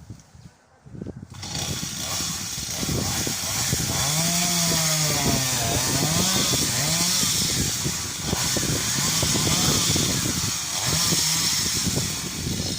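Chainsaw starting about a second in and running steadily. A man's voice calls out briefly over it in the middle.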